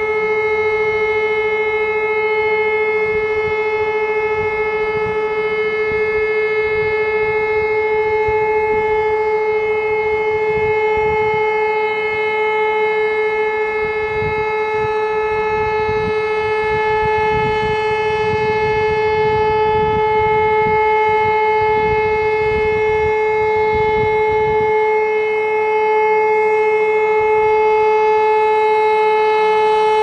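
E57 electromechanical civil-defence siren sounding one steady, unbroken tone at a constant pitch. This is the continuous-tone all-clear (Entwarnung) signal of a siren test.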